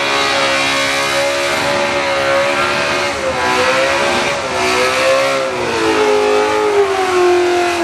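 Holden VK Commodore doing a burnout: its engine held at high revs over the hiss of spinning rear tyres. The revs waver and dip about three seconds in, then sag steadily near the end.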